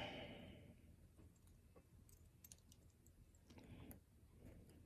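A sharp metallic click at the start that rings briefly, then faint scattered ticks of small metal parts as a picked Goal P pin-tumbler lock is handled and shimmed for disassembly.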